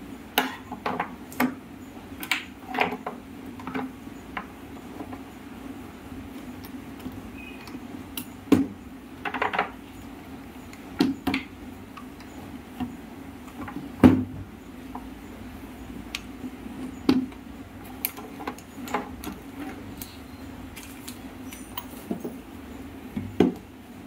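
Scattered clicks and knocks of plastic and metal parts of a table fan being handled and set down on a workbench during reassembly, over a steady low hum.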